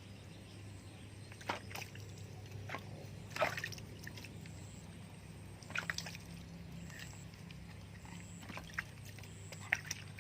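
Water sloshing and splashing in short, irregular bursts while a cat is being bathed, over a low steady hum.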